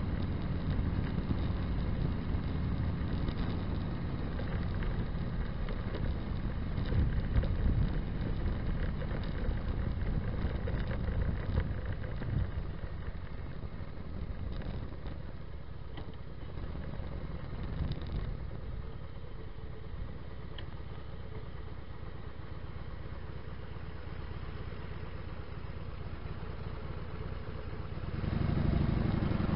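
Motorcycle engine running through Vance & Hines Longshots exhaust with quiet baffles while riding, with a steady low exhaust note. It eases off to a quieter note about halfway through, then gets louder again near the end.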